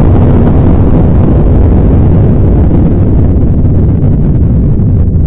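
Explosion sound effect: a loud, steady low rumble with no break.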